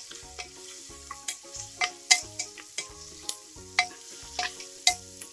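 Onions and green chillies frying in oil in an aluminium pressure cooker, stirred with a metal spoon: a steady sizzle with sharp clinks of the spoon against the pot, about two a second.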